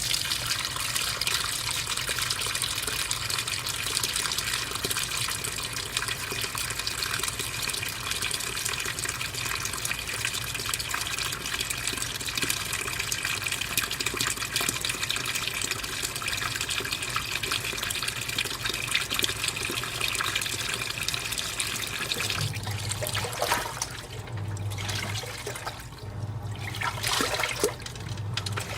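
AQUA MCW-C70 coin-operated washing machine filling for its rinse, cold mains water pouring hard into the drum. Over the last several seconds the drum motor starts agitating in short on-off strokes with the water still running.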